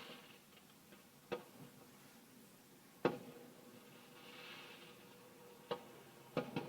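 A few faint, sharp pops or knocks at uneven intervals, each with a short ring after it, the last two close together near the end, over a low hiss.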